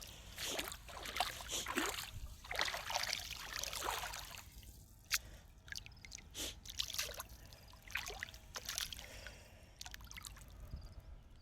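Water splashing and trickling in irregular bursts, with a few sharp knocks and clicks between them.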